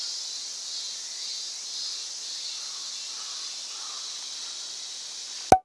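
Steady, high-pitched chorus of insects, with a single sharp click near the end as the sound cuts off abruptly.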